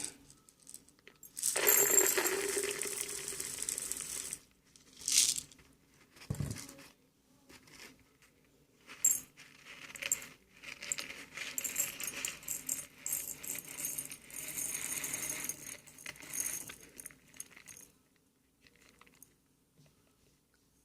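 Coarse Himalayan salt crystals poured into a glass grinder jar, rattling and clinking: one pour about a second and a half in, a few knocks, then a longer spell of rattling pours.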